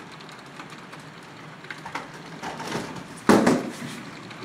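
HO scale model freight trains rolling, with a steady rumble and irregular clicking of the wheels on the track. A sudden loud thump comes a little after three seconds in.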